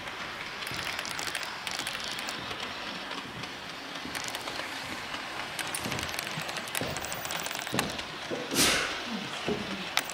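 Indoor hubbub of visitors' voices with faint clicking, as a model train runs on its layout; a short, loud rush of noise comes about eight and a half seconds in.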